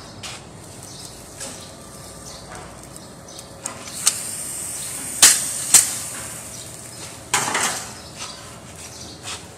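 Metal clinks and clacks from a 32-mould wafer ice cream cone machine as batter is loaded into its mould plate and the cone cores are brought into it, with two loud sharp clacks about five seconds in and a rougher, longer clatter a couple of seconds later.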